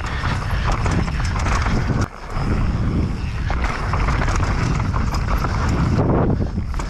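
Downhill mountain bike (Specialized Demo) rattling and clattering over a rough trail, with rapid knocks from tyres and frame on roots and ground over a heavy low rumble. The noise drops briefly about two seconds in.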